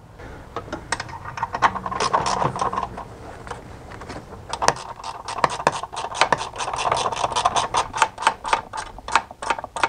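Rapid, irregular small metallic clicks and rattles, sparse at first and coming thick from about halfway on, from hands fitting a nut onto a brake line fitting.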